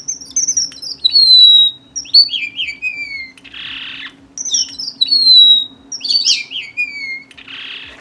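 Red munia (red avadavat, strawberry finch) calling: high, thin whistled notes that slide downward, in two similar phrases about four seconds apart, each ending in a short hiss.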